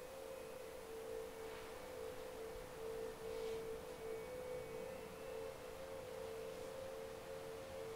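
Eerie electronic drone: two steady close-pitched tones in the middle-low range, the lower one pulsing on and off, over a faint hiss.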